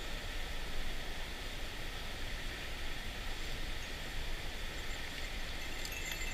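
Steady rush of a mountain stream's flowing water.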